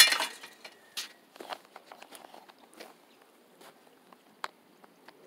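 A loud, brief clatter at the start, then irregular footsteps and small clicks and knocks on dry dirt and straw that thin out after about three seconds.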